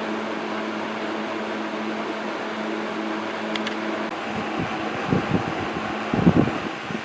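Vintage McGraw-Edison Eskimo 14-inch box fan running with a steady motor hum and air rush. About four seconds in the hum changes, and gusts of air buffet the microphone, strongest near the end.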